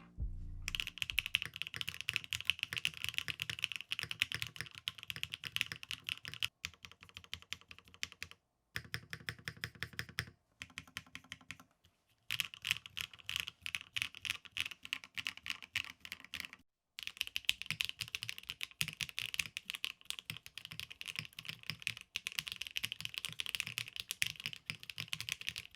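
Fast typing on a Neo75 CU 75% mechanical keyboard built without any foam: quick runs of keystroke clacks with a few brief pauses.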